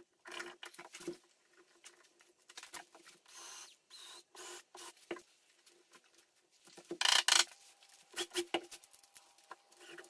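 Small scrapes and taps of hand work in a softwood door lining: a chisel paring out the keep recess, then the metal latch keep being handled and pressed into place. A louder clatter comes about seven seconds in.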